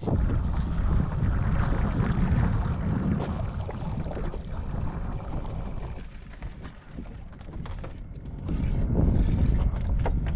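Wind buffeting the microphone and water sloshing against the hull of a fishing boat at sea, a rough low rumble that eases for a couple of seconds past the middle and then picks up again.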